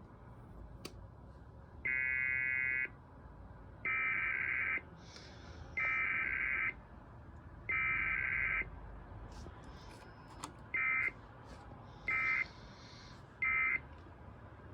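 Electronic alert buzzer of an Emergency Alert System receiver beeping: four long beeps about two seconds apart, then three short, quicker beeps. The beeping signals an incoming EAS alert being received for relay.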